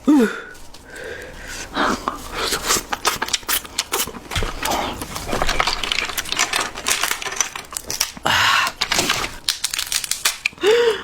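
Close-miked eating sounds: chewing and slurping of seafood ramen and snow crab, with many quick crackling clicks.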